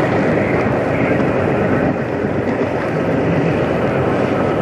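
Diesel semi truck's engine running loud and steady as the truck rolls slowly past at close range.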